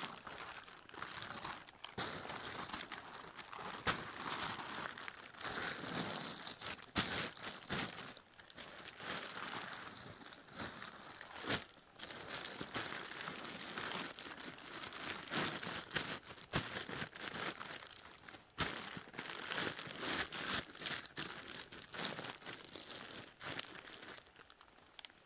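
A plastic tarp rustling and crinkling as it is folded up by hand, with many sharp crackles as the sheet is creased and pressed down.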